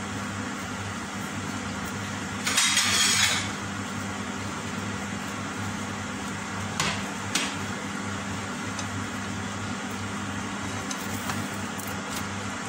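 A pancake cooking in a nonstick frying pan over a steady low hum. A short, loud hiss comes about two and a half seconds in, then two sharp clinks of a utensil on the pan about a second apart near the middle.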